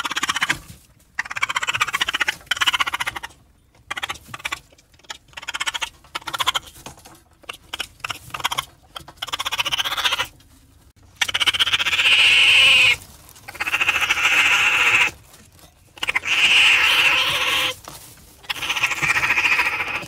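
Raccoon giving harsh, rasping calls. First comes a quick run of short calls, then from about halfway four longer, louder ones of about two seconds each.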